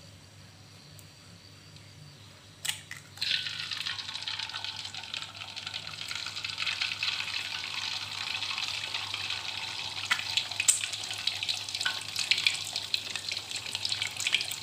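A sharp tap about two and a half seconds in, then a sudden loud sizzle as an egg goes into hot cooking oil in a wok. The egg keeps frying with steady crackling and frequent popping spatters.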